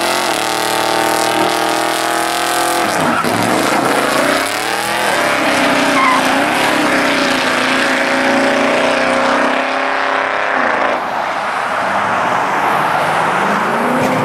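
Car engine revving hard, its pitch rising and falling twice, over tire squeal from a street burnout.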